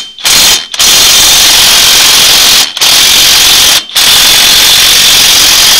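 Power impact wrench run hard in a series of loud bursts with short pauses between them, the longest about two seconds, working the front-end loader's mount bolts loose on a John Deere 4210 tractor.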